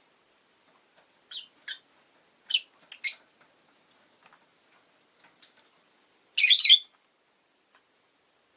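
Rosy-faced lovebird giving short high chirps, four in the first three seconds, then a louder, harsh burst of squawking chatter lasting about half a second, about six and a half seconds in.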